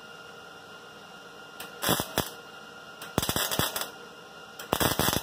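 Wire-feed welder arc crackling in three short bursts as stitch welds go onto a car's sheet-steel quarter panel: one about two seconds in, a longer one just after three seconds, and one near the end.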